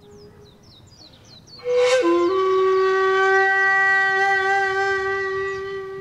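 A flute sounds one long held note: a breathy attack about two seconds in, a quick slide down in pitch, then a steady tone. Faint high bird chirps come before it.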